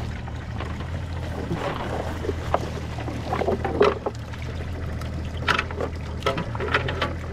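Boat engine idling steadily in neutral under the wet rustle and splatter of a cast net full of pilchards being shaken out into a live well. A run of sharp clicks and rattles comes about five seconds in, from the net's lead weights and flapping baitfish.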